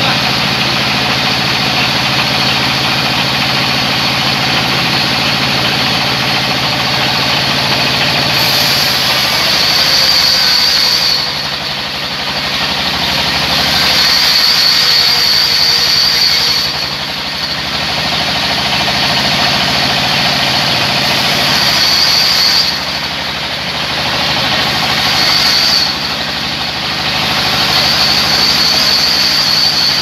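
Sawmill band saw running steadily while its blade cuts a large log lengthwise, a high whine coming and going several times as the log is fed through.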